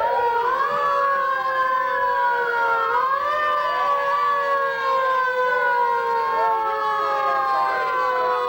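Several emergency-vehicle sirens sounding at once, their overlapping tones gliding up and down and slowly falling in pitch.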